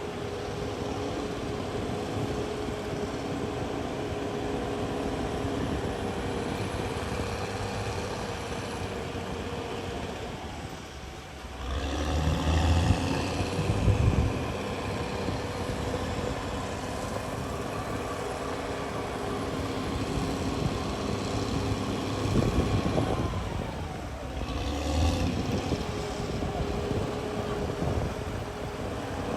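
Diesel engine of a CAT D6R crawler bulldozer running steadily. It dips briefly about eleven seconds in, then comes back louder with rising pitch, and swells again twice later on.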